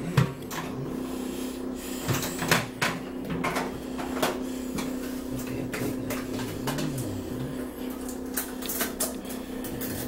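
Irregular knocks, bumps and clicks as a countertop microwave oven is pushed and shifted into place, the sharpest one right at the start, over a steady low hum.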